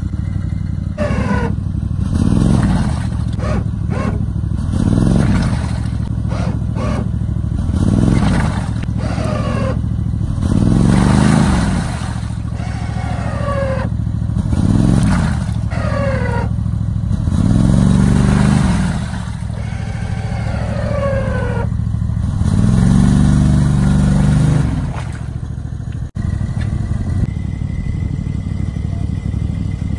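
Small tracked amphibious ATV's engine running and repeatedly revved as it churns through mud, each rev rising and falling every few seconds with a falling whine after several. Near the end the revving stops and it runs steadily.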